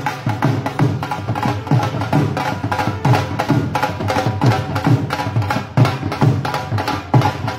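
Punjabi dhol and a smaller side drum beating a fast, steady rhythm, with pitched band instruments sounding along over the drums.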